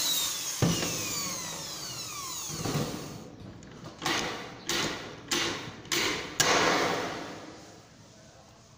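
Sheet-metal gutter being worked with hand tools at its outlet hole: a series of sharp metallic knocks, about five in quick succession around the middle, each leaving the sheet ringing. At the start the flexed sheet gives off a wavering ring that falls in pitch.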